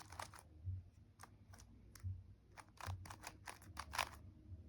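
Rubik's cube layers being turned by hand: an irregular run of plastic clicks, several a second, with a louder clack about four seconds in.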